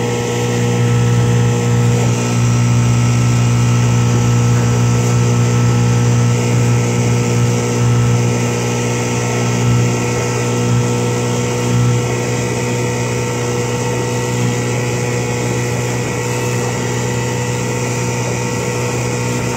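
1969 Johnson 6 hp two-stroke twin outboard motor running steadily under way, pushing a small aluminium boat into wind and chop.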